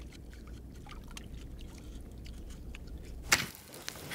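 A faint low hum with scattered soft ticks, then a single sharp crack a little over three seconds in. After it comes the light crackle of a wood fire burning among heated stones, with a stick worked into the fire.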